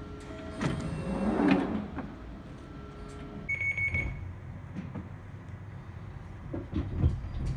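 Inside a London Underground 1995 Stock train at a platform: a loud shuffling noise about a second in, then a single short high beep near the middle, the door-closing warning, and knocks near the end as the doors shut.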